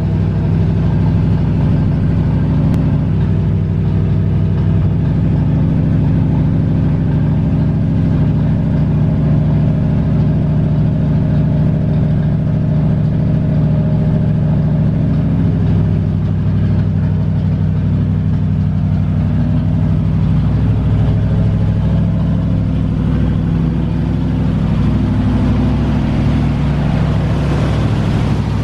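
1968 Chevrolet C20 pickup's engine idling steadily.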